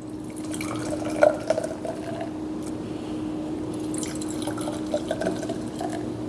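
A drink being poured into a glass, with small drips and clinks, over a steady low hum.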